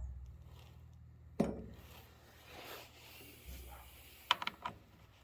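Light metallic clicks and taps from handling a chainsaw while adjusting its bar and chain tensioner with a small screwdriver: one sharp knock about a second and a half in, then a quick run of three or four clicks near the end.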